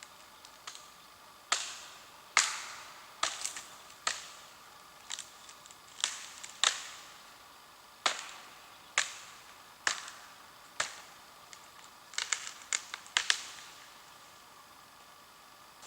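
Sharp cracks and snaps of dry wood, about fifteen of them at uneven intervals with a quick flurry near the end, as wood is broken up for a campfire.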